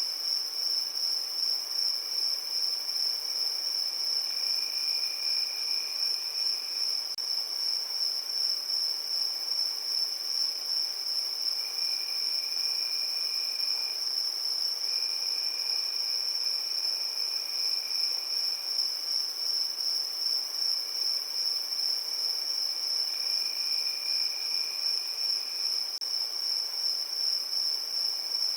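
Crickets chirping in a steady chorus: one continuous high trill, with a lower trill joining in for a couple of seconds at a time, about four times.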